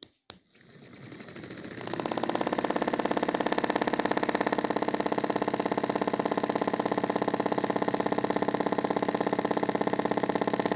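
A switch clicks twice, then the small electric motor of a cardboard model rice thresher spins up over about two seconds and runs steadily, turning the wire-toothed threshing drum with a fast, even whir.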